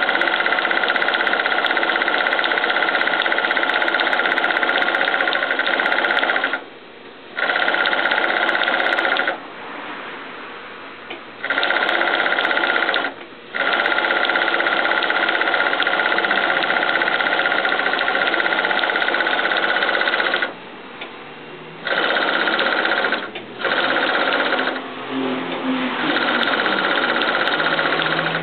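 Vintage Union Special three-needle industrial sewing machine with a top-cover thread stitching at speed, running in long loud stretches with several short stops.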